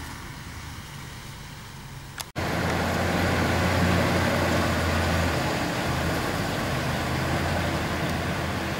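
Diesel engine of a concrete mixer truck running with a steady low hum. An abrupt break about two seconds in is followed by the engine sounding louder and fuller.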